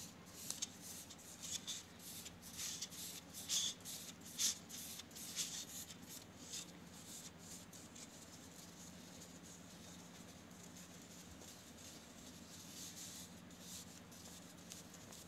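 Faint rubbing and scratching of fingers pressing glued velvet cloth onto the inside rim of an iron flour sieve, in short irregular strokes that fade after about seven seconds. A faint steady low hum runs underneath.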